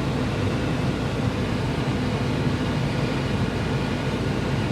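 Diesel engine of a corn-harvest machine running steadily with a low, even hum.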